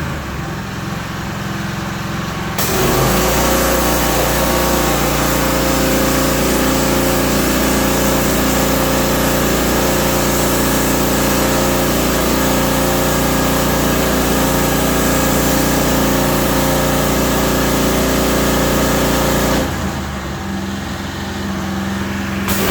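Gas pressure washer engine running steadily, with a loud, even spray hiss from about three seconds in. The spray stops about three seconds before the end while the engine carries on.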